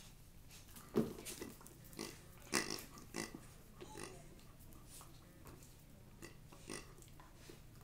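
A puppy playing with a plush toy on a hard floor: scattered short, sharp noises, the loudest about a second in and again at about two and a half seconds, over a faint steady hum.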